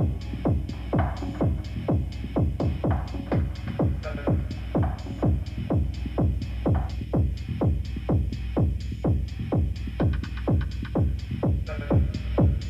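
Techno music from a DJ mix: a steady kick drum at about two beats a second over a heavy bassline and synth layers.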